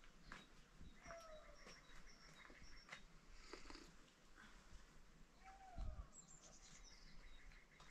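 Quiet outdoor ambience with faint chirps from small birds repeating throughout. Two short falling animal calls come about a second in and again near six seconds, and a soft thump comes near six seconds.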